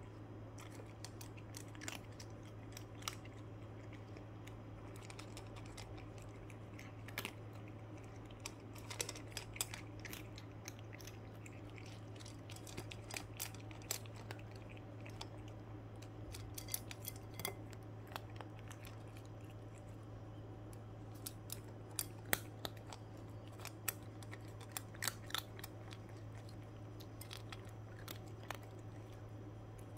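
Cat crunching dry kibble from a metal bowl: irregular sharp crunches, often in quick clusters, over a steady low hum.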